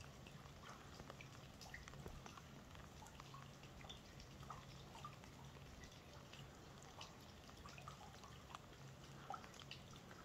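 Light rain falling on a lake: faint, scattered drips and ticks of drops hitting the water, over a faint low hum.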